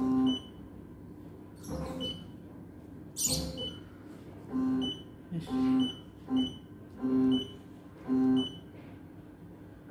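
Computerised embroidery machine's touchscreen control panel beeping as its keys are pressed: about eight short electronic beeps at uneven intervals, some in quick pairs.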